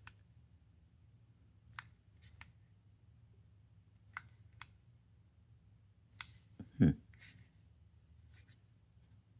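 Scattered light clicks from a digital torque wrench being handled and its buttons pressed while someone tries to power it on, with one duller, louder knock about seven seconds in.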